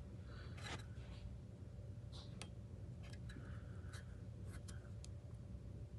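Faint scattered clicks and light rubbing as a mini trampoline's handlebar adjustment knob is hand-tightened against the leg.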